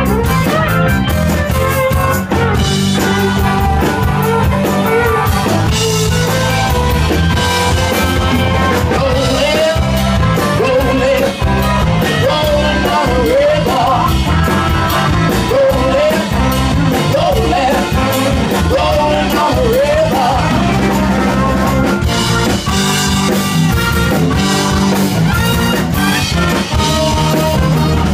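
Live rock band playing an instrumental stretch with drums and bass, a lead line of sliding, bent notes in the middle of it.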